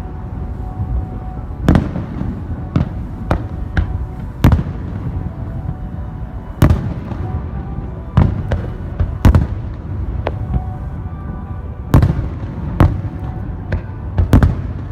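Fireworks display: about a dozen sharp booms of aerial shells bursting at irregular intervals, some close together, over a steady low background rumble.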